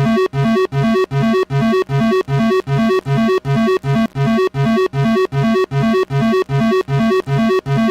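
Synthesized emergency alert alarm: short buzzy electronic beeps repeating about three times a second, switching back and forth between a lower and a higher pitch.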